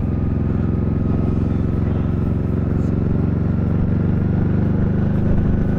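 JS700 motorcycle's engine running steadily while riding at cruising speed, heard from on the bike, getting slightly louder near the end.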